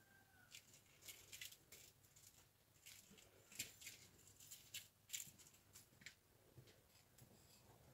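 Faint, irregular clicking and rattling of a small plastic lattice-ball cat toy as a kitten bites and paws at it on concrete.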